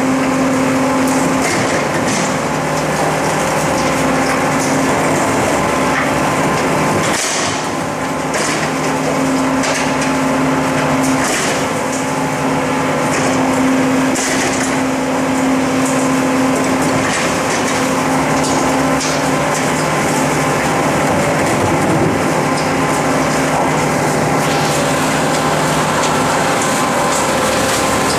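Rotary-type rear-loading garbage truck running with its hydraulics engaged while a wheeled refuse bin is lifted and tipped into the hopper. A steady machine hum runs under repeated knocks, cracks and crunching of the bin and the refuse.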